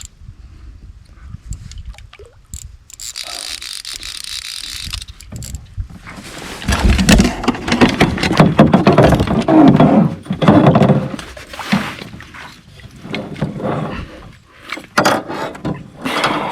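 A hooked landlocked salmon being fought and brought in beside a canoe. A hiss lasts a couple of seconds about three seconds in, then comes a long stretch of loud splashing, thrashing and sharp knocks.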